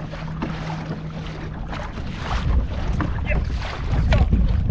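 Wind buffeting the microphone and water slapping against a kayak hull, with scattered knocks. The wind rumble swells louder in the second half.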